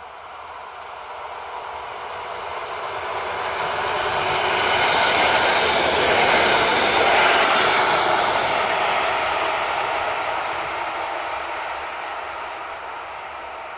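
Koleje Mazowieckie electric multiple unit passing at speed: wheels and running gear on the rails make a steady rushing noise. It swells, is loudest about halfway through, then fades as the train moves away.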